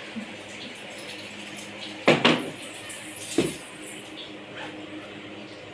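Two sharp knocks or clatters, about two seconds in and again just over a second later, over a steady low room hum: household handling sounds while packing.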